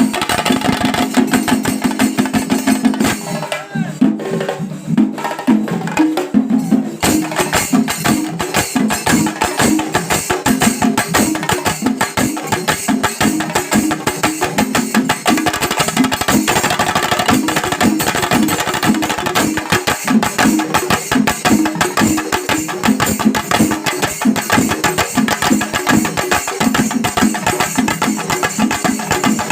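Kerala temple percussion ensemble playing: rapid, dense drumming with cymbals clashing along.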